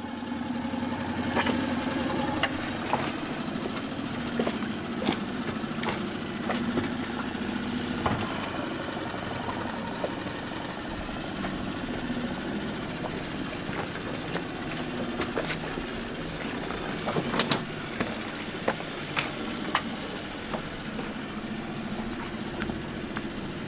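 Small outboard motor on an inflatable dinghy idling steadily, with scattered sharp knocks and clicks over it.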